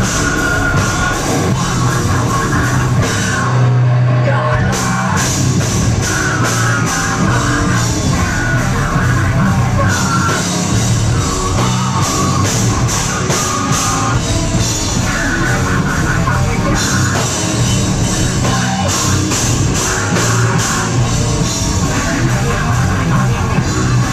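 A live metalcore band playing loud, with guitars, drums and a vocalist on a microphone. About four seconds in the cymbals drop out briefly under a held low note, then the full band comes back in.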